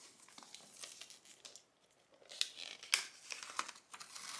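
Thin protective paper wrap being peeled off a new laptop by its pull tab. There is faint rustling at first, then sharper crackles from about halfway on.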